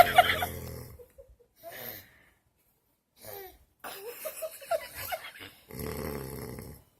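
A person snoring heavily: two long snores, one at the start and one near the end, with stifled giggling in between.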